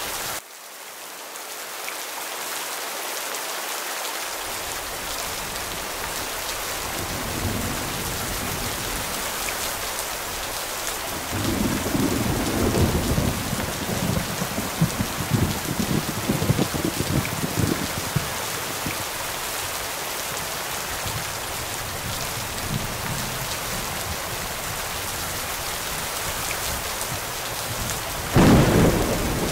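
Steady rain falling, with thunder rumbling low for several seconds about a third of the way in, and a sudden loud thunderclap near the end.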